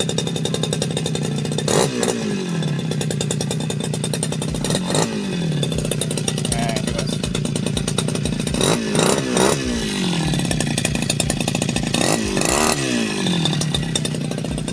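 Two-stroke brush cutter engine idling, blipped with the throttle trigger several times, each short rev falling back to idle.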